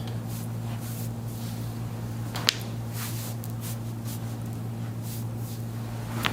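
A single sharp joint crack from a chiropractic adjustment of the upper back or neck about two and a half seconds in, with a smaller click near the end, over a steady low hum.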